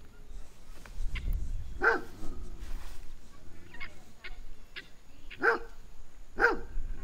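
A dog barking in single barks, once about two seconds in and twice near the end: a wary alarm at something it finds strange.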